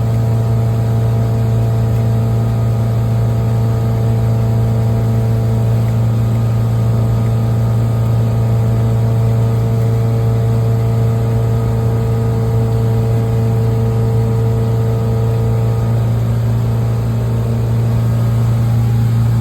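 A Mercury MerCruiser 5.7-litre V8 sterndrive engine humming steadily at high speed with the boat up on plane. It runs smoothly after a fresh tune-up.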